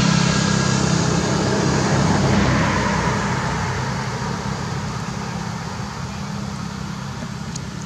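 A motor vehicle's engine droning steadily and slowly fading away.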